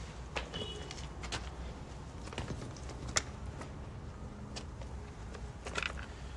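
Irregular light clicks and crackles of footsteps over litter and debris, with one sharper click about three seconds in, over a low steady hum.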